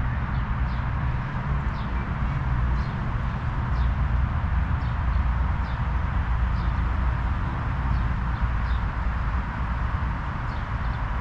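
Small birds chirping: short, high, falling chirps every second or so over a steady low rumble and hiss of outdoor ambience.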